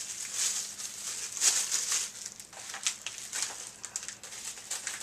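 Packaging crinkling and rustling as it is handled, in irregular bursts, with a few sharp clicks about halfway through.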